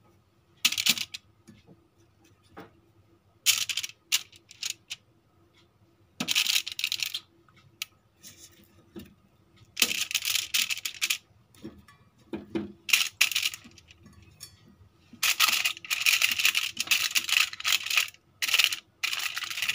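Aluminium foil crinkling and rustling in irregular bursts as potato slices are pressed down onto a foil-lined baking pan. The longest stretch of crinkling comes about three-quarters of the way through.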